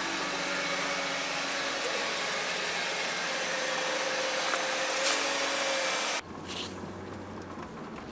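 Mercedes-Benz W210 E320 engine idling, heard from outside the car as a steady hum with hiss. About six seconds in it cuts abruptly to a quieter, lower drone inside the cabin as the car is driven.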